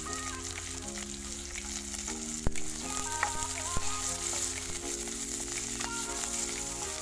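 Sliced onions and curry leaves sizzling steadily in hot oil in a wok as they are stirred with a spoon, which knocks against the pan twice near the middle. Soft background music with held notes plays underneath.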